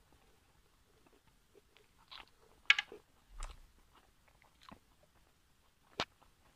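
Close-miked eating sounds of a person finishing pork momos: slow chewing, wet lip smacks and finger-licking, heard as scattered clicks. The sharpest smacks come a little under three seconds in and again near the end, with a dull low bump about three and a half seconds in.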